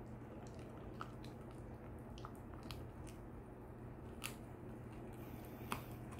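Shiba Inu gnawing a large chew-bone treat with its side teeth: irregular soft crunches and clicks, the sharpest about four and a quarter and five and three-quarter seconds in.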